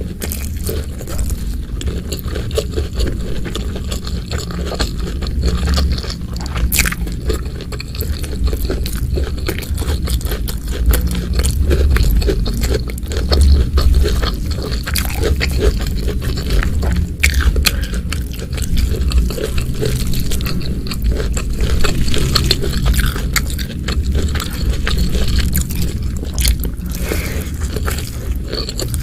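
Close-miked eating: biting and crunchy chewing, with short crackling clicks and occasional scrapes.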